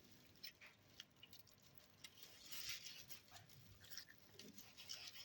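Near silence with faint, scattered rustling and scraping from hands working raw pork ribs on a chopping board.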